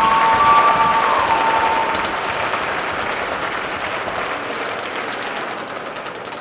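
Crowd applauding in an arena, slowly dying down. A couple of steady high tones sound over it in the first two seconds.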